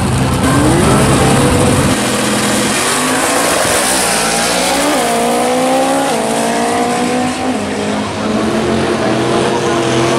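Two Ford drag cars, a Fox-body Mustang among them, launch off the line with engines revving up about half a second in. They pull hard down the strip, the pitch climbing and then dropping back at each gear change.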